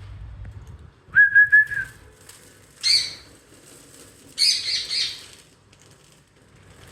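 Pet parrots calling: a short, steady whistle about a second in, then two harsh screeches, the second one longer.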